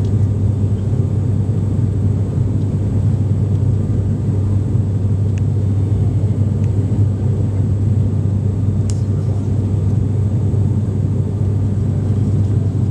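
Steady low drone of a high-wing turboprop airliner's engines and propellers, heard from inside the passenger cabin as the plane climbs out after takeoff.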